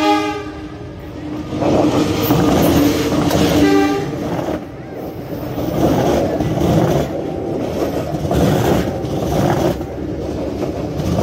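Diesel locomotive horn fading out at the start, then a second short horn blast about three and a half seconds in. The locomotive and its passenger coaches pass close by, with a loud, steady rumble and clatter of wheels on the rails.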